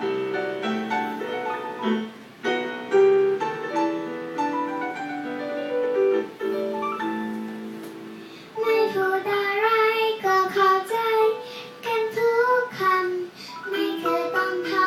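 A piano accompaniment plays alone, then about eight and a half seconds in a young girl starts singing a pop ballad over it.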